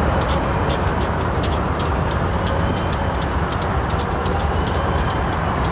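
Diesel-electric road-switcher locomotive's engine running with a steady low rumble, its stacks pouring out heavy exhaust smoke, with sharp high clicks repeating several times a second over it.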